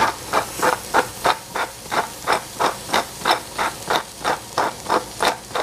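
Hand-turned pepper mill grinding peppercorns: an even run of short crunching grinds, about three a second.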